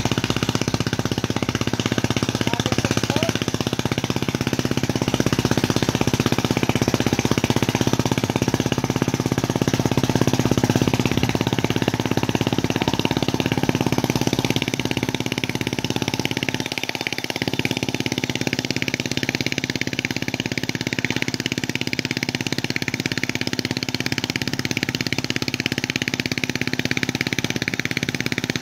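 Mud boat tiller's engine running steadily while tilling a flooded rice paddy, dipping briefly a little past halfway.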